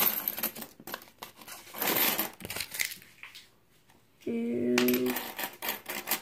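Copper pennies from a freshly opened roll clinking and sliding against each other as they are spread out and pushed around by hand on a wooden tabletop. A short steady low hum lasting about a second sounds a little past the middle.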